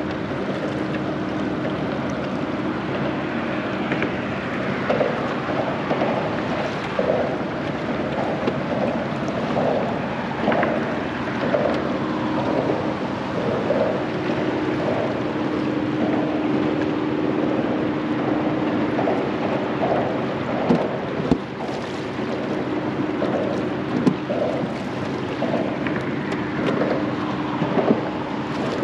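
Wind on the microphone and water moving around a small boat, over a steady hum, with a few sharp knocks in the second half.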